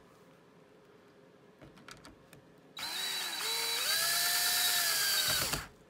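Power drill driving a long screw through a coyote head form into its neck socket. After a few light handling clicks, the drill starts about halfway through and runs for about three seconds with a whine that rises in pitch as it speeds up, then stops.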